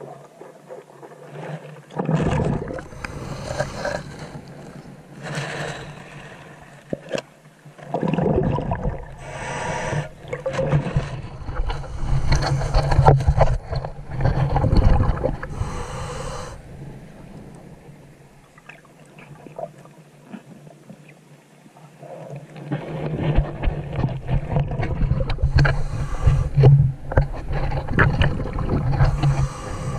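Scuba diver breathing underwater through a regulator: long rushing spells of exhaled bubbles with clicks and scrapes picked up through the camera housing. There are three spells, with a quieter lull of a few seconds about two-thirds of the way through.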